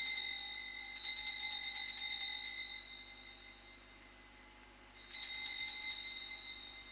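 Altar bell shaken in quick strokes at the elevation of the host during the consecration: a bright, high ringing that fades away by about three seconds in, then rung again about five seconds in as the priest genuflects.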